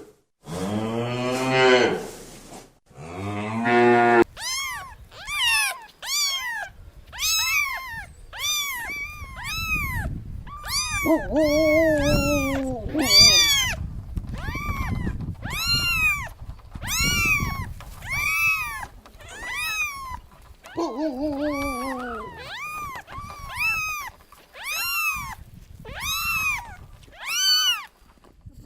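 A cow mooing with deep, drawn-out calls, then a kitten mewing over and over in short high calls that rise and fall, about two a second. A lower, longer meow joins in twice.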